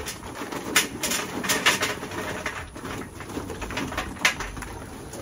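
Charcoal briquettes poured from a Kingsford bag into a metal chimney starter, clattering and clinking in irregular bursts as they land on the metal and on each other. A bird calls at the same time.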